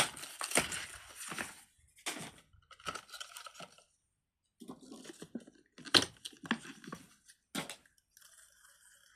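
Plastic fidget toys being handled: irregular crunchy clicks and rustles, loudest and densest near the start, with a few single sharp clicks later on.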